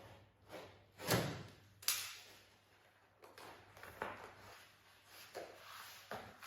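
A few knocks and thumps: a heavy thump about a second in, a sharp knock just before two seconds, then several quieter clunks.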